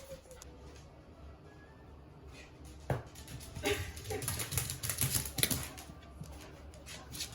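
Quick light clicks and taps from a corgi playing with its toy, with a single sharper knock about three seconds in.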